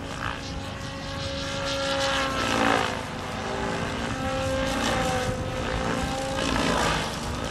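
Electric HD-750 model helicopter in 3D aerobatic flight: a steady motor and rotor whine that shifts a little in pitch, with rushing swells of blade noise about a third of the way in and again near the end as the rotor loads up in the manoeuvres.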